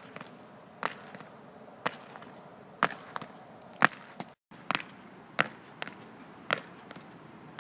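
An athlete's feet striking a synthetic running track during hurdle drills. The footfalls come as sharp, separate thuds about once a second, some in quick pairs, and the sound cuts out briefly near the middle.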